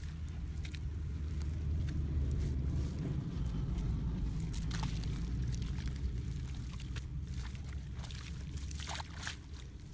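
Hands scraping and pushing loose damp soil, with clods crumbling and dropping in a few short sharp crackles, most of them in the second half, over a steady low rumble.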